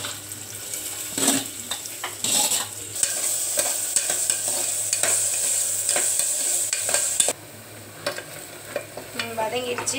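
Chopped onions and garlic sizzling as they sauté in hot oil in an aluminium pressure cooker, stirred with a steel ladle that scrapes and clinks against the pot. The sizzle drops away abruptly about seven seconds in, leaving quieter stirring.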